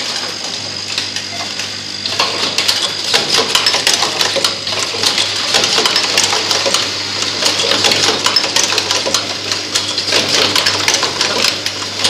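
RJ connector pin-insertion assembly machine running: a steady low hum and a high steady tone under dense, rapid clicking and rattling of parts and mechanism. It gets louder about two seconds in.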